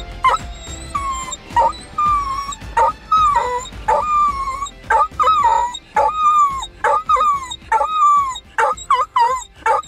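A hound-type dog howling in a car, about a dozen short howls on much the same pitch, each bending down at its end, coming faster near the end.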